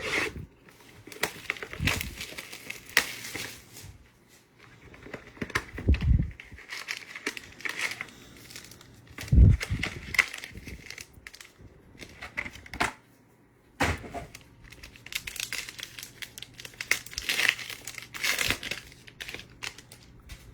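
Trading card pack wrappers crinkling and tearing as a hobby box and its packs are opened, with irregular crackles and a few dull thumps.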